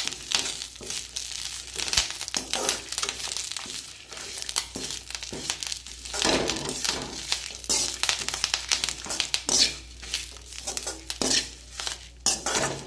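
A slotted metal spatula stirring dry-roasting curry leaves and dried red chillies in a little ghee in a metal kadai. The leaves crinkle and rustle, and the spatula scrapes and clinks on the pan in irregular strokes.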